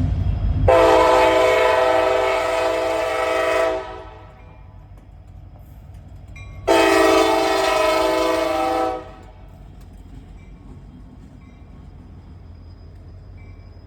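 Train air horn sounding a chord in two long blasts, the first about three seconds and the second about two seconds, with a steady low rumble of the moving train underneath.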